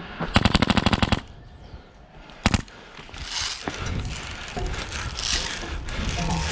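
Airsoft rifle firing a fast full-auto burst of about a dozen shots, followed a second and a half later by a single shot.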